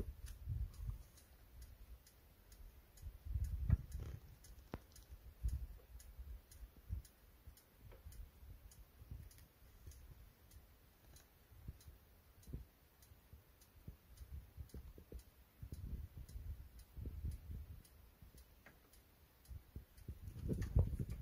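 Faint, evenly spaced ticking, about two ticks a second, over scattered low rumbles and thumps.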